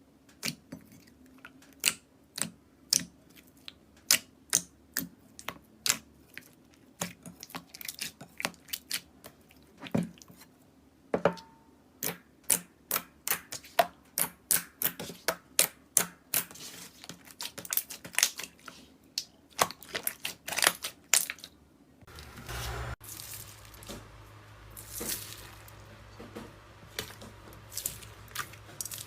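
Slime being pressed and poked, giving sharp irregular clicks and pops a few times a second. After a cut near the end, softer wet squishing goes on over a low steady hum.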